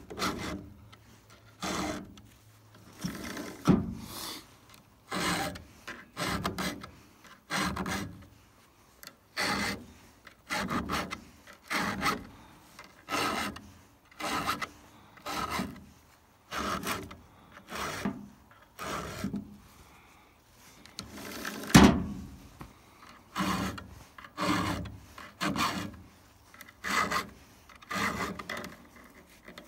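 A round chainsaw file rasping across the cutters of a Stihl saw chain in steady hand strokes, about one a second, sharpening the chain. The strokes pause briefly about two-thirds of the way through, and one louder stroke follows.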